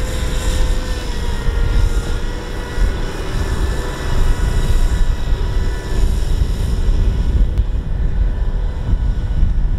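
Kubota M6040SU tractor's four-cylinder diesel engine running steadily while the tractor sits bogged in deep mud, a low drone with a steady whine on top.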